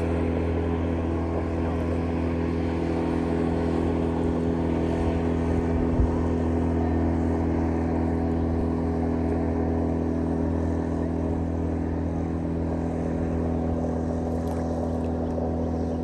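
Motorboat engine running steadily at a constant speed, a deep even drone. A brief low bump sounds about six seconds in.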